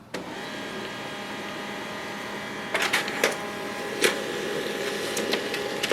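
HP LaserJet M141we laser printer starting up and printing a page: a steady motor hum starts just after the beginning, with a few sharp clicks of the paper feed about three and four seconds in.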